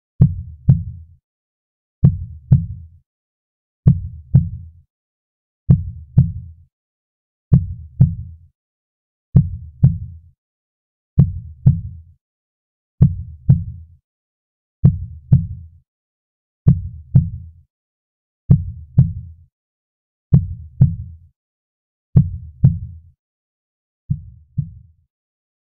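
Slow, soft heartbeat: a lub-dub pair of low thumps repeating evenly just under every two seconds, with silence between the beats.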